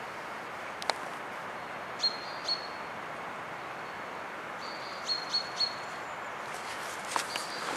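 Forest ambience with a steady hiss and a small bird calling in short, high, flat chirps, two or three at a time. There is a single sharp click about a second in, and footsteps on forest litter begin near the end.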